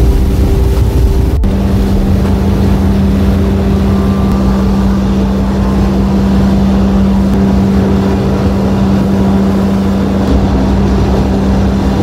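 Steady low drone of a ferry's engines and onboard machinery heard on board, with a constant hum. The hum's pitch drops at a cut about a second and a half in and then holds steady.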